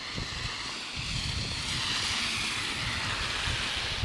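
A vehicle's tyres hissing on a wet, slushy road as it passes, swelling about a second in and holding steady, over a low uneven rumble of wind on the microphone.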